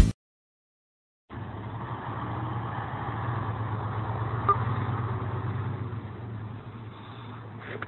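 Engine of a heavily loaded log truck running steadily, a constant low drone, starting suddenly about a second in and easing slightly near the end.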